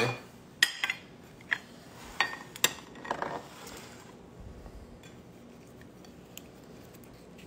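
Ceramic plates and a small ramekin set down and knocked against each other on a marble countertop: several sharp clinks and knocks in the first three or four seconds, then nothing more.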